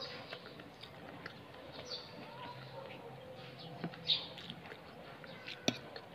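Quiet close-up eating sounds, chewing with mouth clicks and smacks, with a few short high bird chirps and a sharp click near the end.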